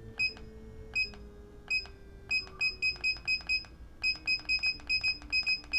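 Motorized turntable beeping at each press of its remote's speed button, about once a second at first and then about three times a second. Under the beeps its motor's whine steps down in pitch as the rotation is slowed, like a run of descending notes.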